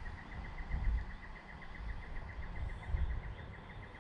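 Steady, fast chirping of a calling insect, about eight even pulses a second, with low rumbling bumps on the microphone about one second and three seconds in.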